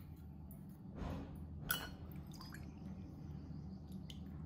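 Quiet kitchen with faint handling noises from steel utensils: a soft knock about a second in and a sharper click shortly after.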